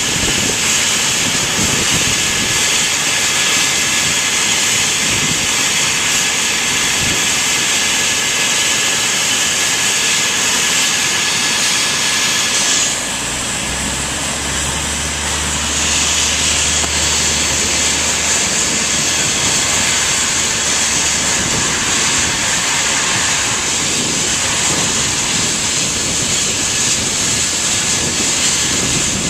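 Eurocopter EC135 helicopter running on the ground with its rotor turning: a steady turbine whine over rotor and engine noise. For a few seconds around the middle the high whine drops away and a low hum comes in before the steady whine returns.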